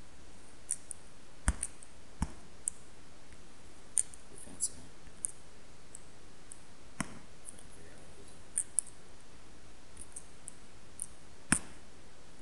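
Irregular clicking from computer input as on-screen notes are selected and erased: about fifteen to twenty sharp clicks at uneven spacing, a few of them louder, over a faint steady hiss.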